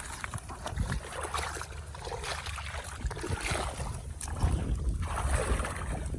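Shallow water sloshing and splashing irregularly, as people wade and work in a flooded rice field.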